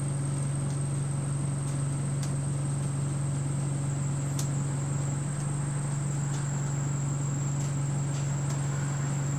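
Steady low drone of a bus heard from inside the passenger cabin, with a constant thin high-pitched whine above it and a few faint clicks; the uploader puts much of the noise down to the air-conditioning.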